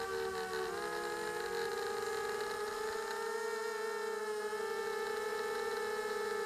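Electric motors and propellers of a small radio-controlled aircraft, heard from its onboard camera: a steady whine of several tones that dips slightly in pitch about a second in, then rises and holds.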